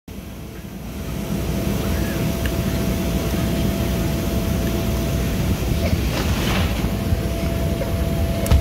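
Steady low drone of an inflatable slide's electric air blower, with a thin steady whine over it. About six seconds in comes a brief hiss as a child slides down the vinyl, and a few thumps near the end as he lands.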